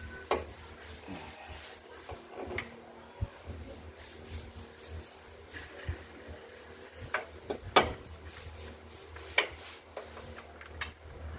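Combination spanner turning and clinking against the water pump bolts as they are done up: scattered sharp metal clicks and ticks, the loudest about two-thirds of the way through, over a low steady hum.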